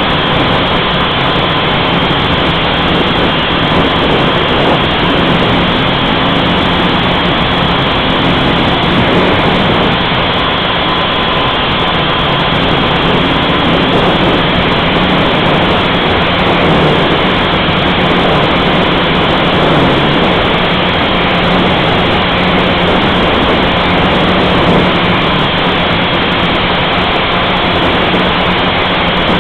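Blade 180 QX quadcopter's small electric motors and propellers running steadily in flight, a loud even rush with a faint steady hum, heard through the onboard camera's microphone along with wind.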